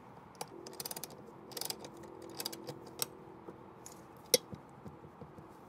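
A 10 mm ratcheting box wrench clicking as it tightens a bolt on a wall mount bracket: a few quick runs of ratchet clicks, then a couple of single clicks.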